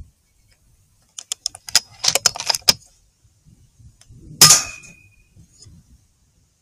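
A quick run of metallic clicks and rattles, then a couple of seconds later a single sharp shot from a .22 FX Impact M3 PCP air rifle with a brief metallic ring after it.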